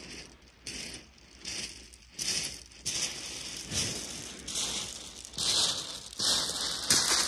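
Footsteps crunching on shingle, about one step every three-quarters of a second, growing louder as the walker comes closer.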